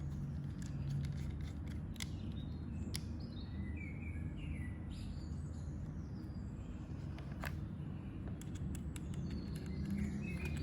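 Birds chirping in the background over a steady low hum, with a few sharp clicks.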